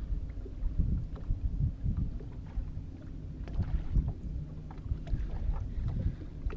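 Small waves slapping irregularly against the hull of a small fishing boat, with low wind rumble on the microphone.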